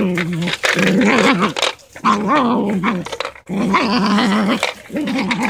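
Small dog growling in long, wavering stretches with brief breaks while tugging at a toy telephone, and a few sharp clicks between the growls.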